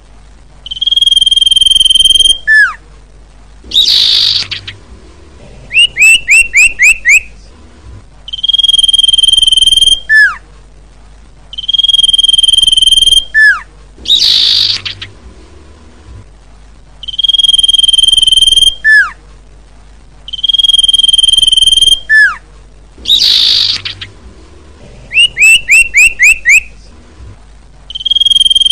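Common iora (cipoh) calling in a repeating sequence. Each cycle holds a long steady whistle ending in a sharp downward slur, a harsh rasp, and a rapid run of about six short falling notes. This is the call used as a lure to draw wild ioras in.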